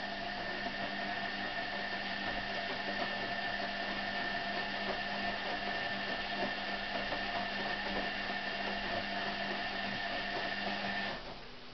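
Hoover A3308 Computer Control 1100 washing machine running partway through a 95 °C whites wash, a steady whirring noise with a faint constant whine that cuts off about eleven seconds in.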